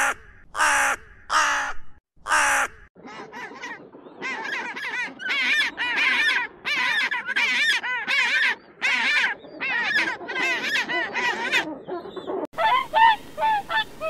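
A crow gives four loud caws in the first three seconds. A long run of rapid, repeated braying calls from penguins follows for about nine seconds. Near the end there is a sudden switch to a series of honking calls.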